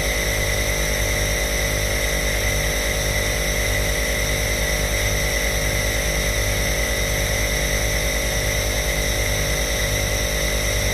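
Home nebulizer's air compressor running steadily: a low buzzing motor hum with a slow, regular wavering, over a constant hiss of air.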